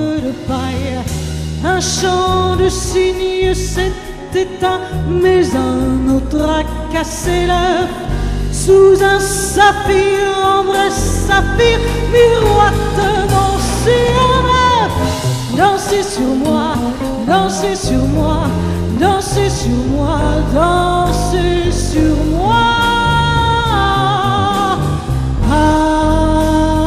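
Live jazz quartet: a woman singing over grand piano, upright double bass and drums with cymbals, holding long sung notes near the end.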